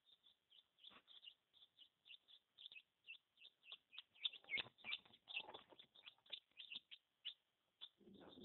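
Newly hatched chicken chicks peeping: a steady string of short, high peeps, about three or four a second. There is faint rustling about five seconds in and again near the end.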